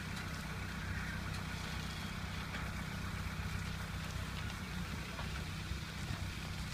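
An engine idling steadily, a constant low hum.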